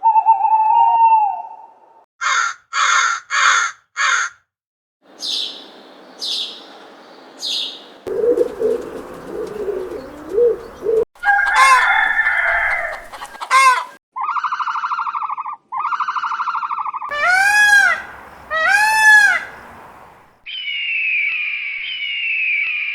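A series of calls from different bird species, cut one after another with short gaps. About two seconds in there are four harsh calls in a row, then a low warbling stretch and some clucking. Near the end comes a long falling cry.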